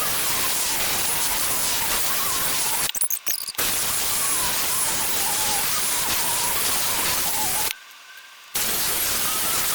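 Revlon One-Step hot-air brush dryer blowing steadily, with a faint wavering whine over the rush of air. It cuts out briefly twice, about three seconds in and again near the end.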